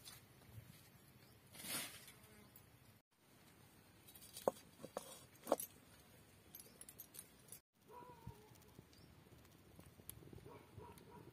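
Quiet outdoor handling sounds. Early on there is a soft scuff of bare feet on dirt. Later come several light metallic clicks and clinks as a metal kadai (wok) is handled and wiped out with a cloth.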